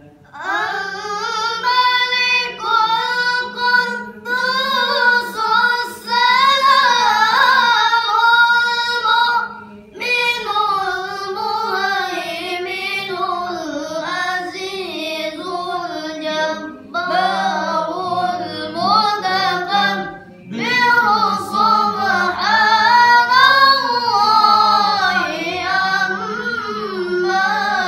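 A child reciting the Quran in a melodic tilawah style: long, ornamented phrases with brief breaths between them.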